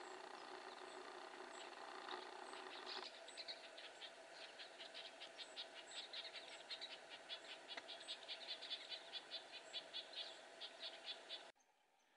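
A flock of pine siskins twittering faintly: a rapid, uneven string of short high chips, growing busier after the first few seconds and cutting off abruptly near the end.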